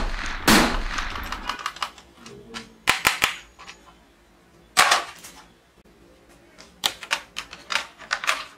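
Plastic toy pistol firing its gunshot sound effects: a loud bang at the start, another that fades out over about a second and a half, then single shots about three and five seconds in. Near the end come several lighter clicks and knocks of plastic toy guns being handled.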